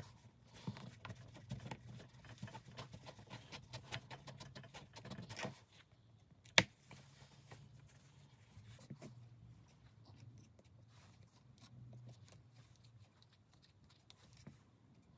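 Hands handling small wooden knife-handle blocks and a paper template on a cutting mat: faint scratching, rustling and light taps, busiest in the first five and a half seconds, with one sharp click about six and a half seconds in.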